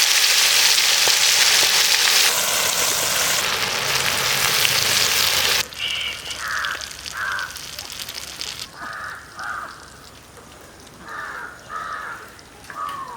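Chicken pieces deep-frying in hot oil, a loud steady sizzle that cuts off abruptly about six seconds in. After that, crows caw several times, mostly in pairs.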